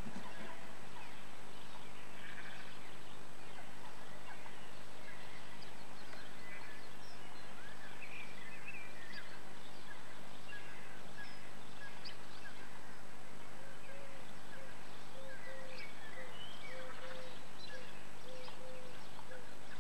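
Scattered short bird chirps and calls, picked up by the microphone inside a swift nest box, over a steady low electrical hum. In the last few seconds a lower note repeats one to two times a second.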